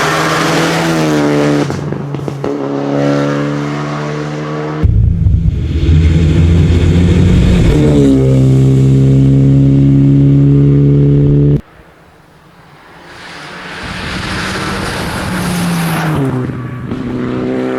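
Rally car engines at full throttle, the revs climbing and dropping back at each gear change as the cars accelerate past. The sound cuts off abruptly twice, about five seconds in and again near twelve seconds, and after the second cut another car comes up loud.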